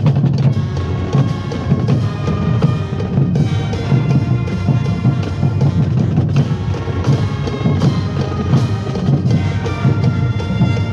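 Marching band playing on the field: held brass chords over steady drumming.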